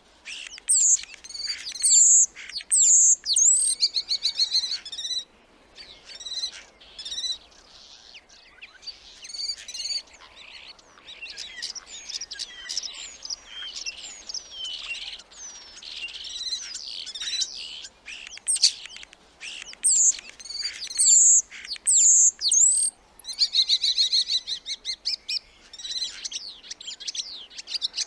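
Starling song: a varied, rambling run of high chirps, sliding whistles and quick clicks, broken by buzzy rattling phrases twice and by short pauses.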